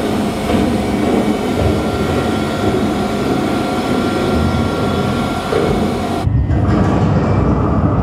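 Loud, dense mechanical rumble and drone from recordings of sewage treatment plant machinery, played back in a phonography performance. About six seconds in it changes abruptly to a deeper, duller rumble with the high end gone.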